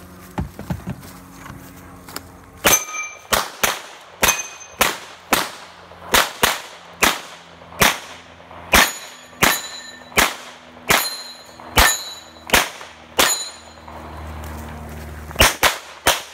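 Pistol fire, about twenty shots at a steady pace of roughly two a second, many followed by the ring of a hit steel target. After a short pause, two or three more shots come close together near the end.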